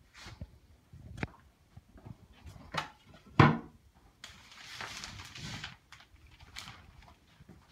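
Footsteps on a hard floor and handling knocks, with one sharp loud knock about three and a half seconds in, followed by a rustling scrape lasting about a second and a half as a shower curtain is pushed aside.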